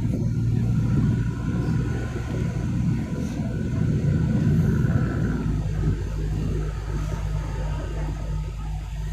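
Tour boat's motor running with a steady low hum, its note shifting a little about five seconds in.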